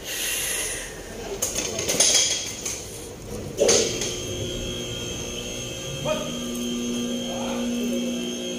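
Sharp metallic knocks and clinks of work on the engine bay, then, about six seconds in, a steady electrical hum with a high whine sets in and holds.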